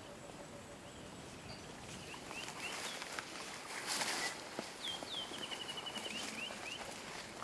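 Wild birds calling in the bush: a run of short down-slurred chirps and a brief steady whistle, over soft scattered rustles and ticks. One louder rustle comes about four seconds in.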